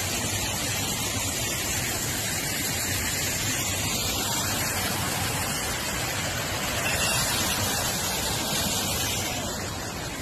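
Torrent of muddy floodwater rushing steadily through a landslide-eroded roadside, a constant wash of water noise that eases slightly near the end.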